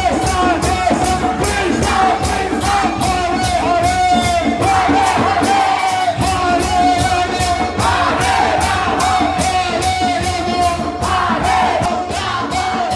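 Group devotional singing in kirtan style, with many voices over hand cymbals struck about four times a second and a steady held note beneath.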